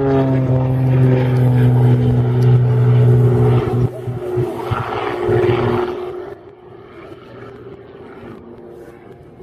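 Aerobatic biplane's propeller engine droning overhead with a steady note. The note breaks up about four seconds in and drops away to a faint rumble about six seconds in.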